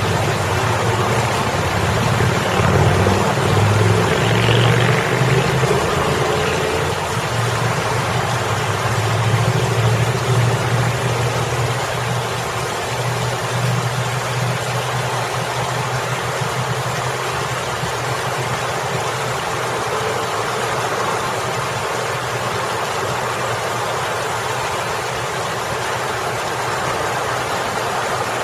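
Water spilling over a boulder fountain, a steady splashing, over the low engine hum of road traffic. The traffic is loudest in roughly the first ten seconds as cars pass, then eases to a steadier, fainter hum.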